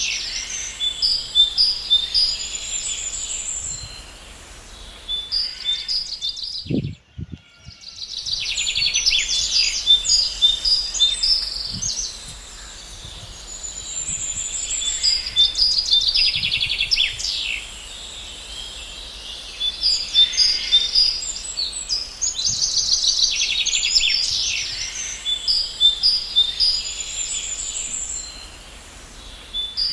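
Many songbirds chirping and trilling in a dense high chorus that swells and eases every few seconds, with a brief break and a low thump about seven seconds in.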